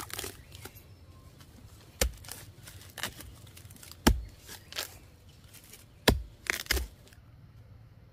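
A series of sharp knocks, roughly one a second, with a quick pair near the end and rustling and scraping between them.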